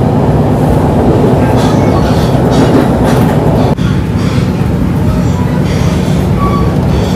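Passenger train running on the rails: a steady, loud rumble of wheels and carriage. Its character changes abruptly about four seconds in.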